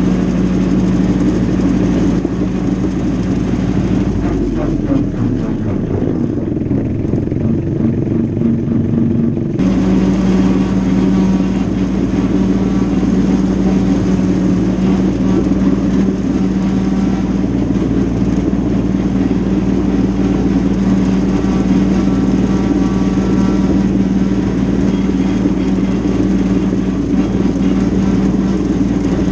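Mahindra tractor's diesel engine running steadily at working speed while pulling a brush hog through tall grass. About four seconds in the engine note sags lower for several seconds, then abruptly returns to its steady pitch about ten seconds in.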